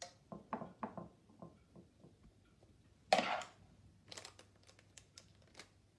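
A metal spoon putting cut strawberries into a glass baking pan lined with parchment: a run of light taps and clinks in the first two seconds, then a short, louder rustling noise about three seconds in, followed by a few more soft taps.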